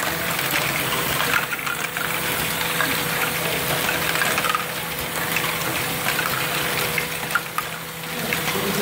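Lego Great Ball Contraption modules running: a dense, steady clatter of small plastic balls rolling, dropping and rattling through chain lifts and tracks, with a steady hum under it.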